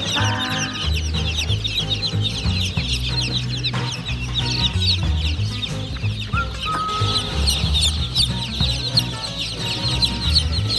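A large crowd of newborn chicks peeping all at once, a dense unbroken chorus of short falling chirps, over background music with a steady bass line.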